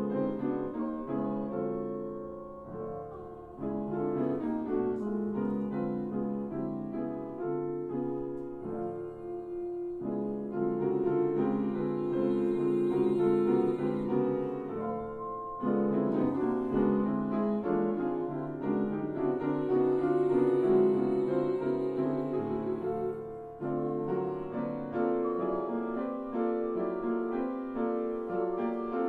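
Piano playing chords and a melody line, becoming louder and fuller about ten seconds in.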